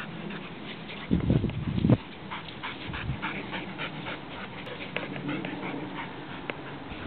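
Bearded Collie puppy digging in sandy soil, its paws scratching the sand in quick repeated strokes, about three a second, with a dog panting. A loud low rumble lasts about a second, starting a second in.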